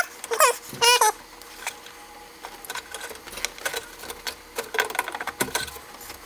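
Ferrari F430's plastic fuel pump module being twisted and wiggled in the fuel tank opening. Two short squeaks in the first second, then irregular light clicks and rattles of plastic parts.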